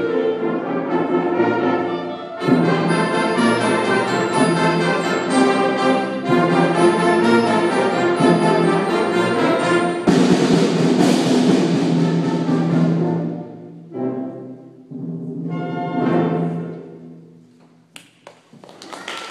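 Concert band playing the closing bars of a fanfare: full sustained chords, a loud accented chord about halfway through, then short final chords that die away. Applause starts right at the end.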